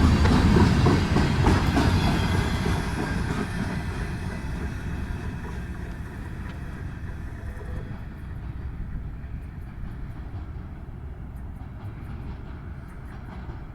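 Train's wagons rolling past on the rails with wheels clacking over the joints, the sound fading steadily as the train moves away.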